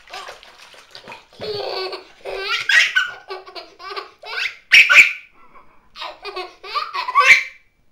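Baby laughing in repeated bursts of belly laughter, loudest about five seconds in.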